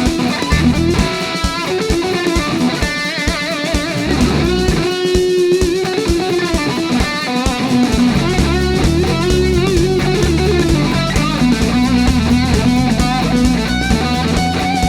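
Rock music led by an electric guitar playing bending, wavering notes over bass and drums, with a fuller, heavier low end from about halfway through.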